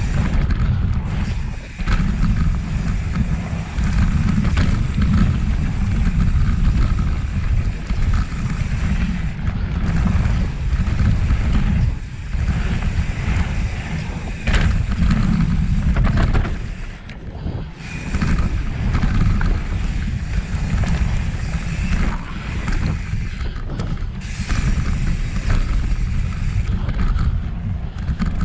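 Wind buffeting an on-board camera microphone on a mountain bike riding down a dirt flow trail, with a steady low rumble, tyre noise and scattered clicks and knocks from the bike. The rush eases briefly a little past halfway through.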